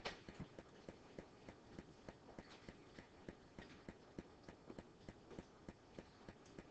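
Near silence: quiet room tone with faint, irregular light clicks, one slightly louder right at the start.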